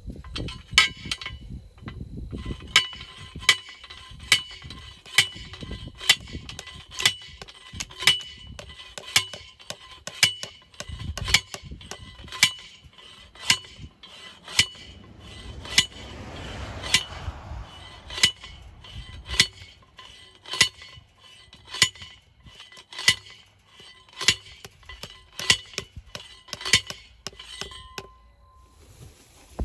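Repeated ringing metal-on-metal strikes on a steel fence post, a little over one a second and somewhat uneven, each clank leaving a short metallic ring.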